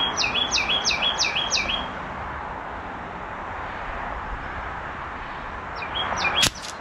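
A songbird singing a loud phrase repeated about three times a second for roughly two seconds, then a few more notes near the end, over a steady outdoor background hiss. A single sharp click comes near the end.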